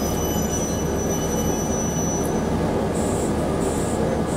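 KiHa 37 diesel railcar pulling away from a station, heard from inside the car: the diesel engine running steadily under power with the car's running noise. A thin high tone fades out about halfway through, and a few short hisses come near the end.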